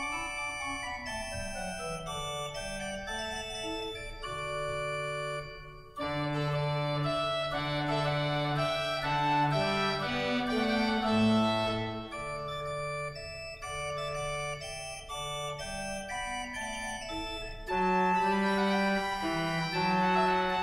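Church organ playing a slow piece in sustained chords over a stepping bass line. It breaks off briefly about six seconds in, then returns fuller and louder, and swells again near the end.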